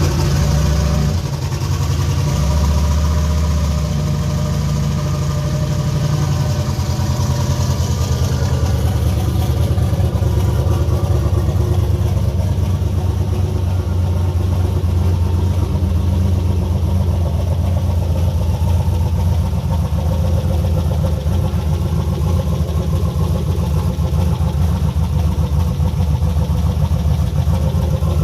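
Turbocharged 4.8-litre LS V8 idling just after starting, a touch higher and busier at first and settling into a steady idle by about eight seconds in.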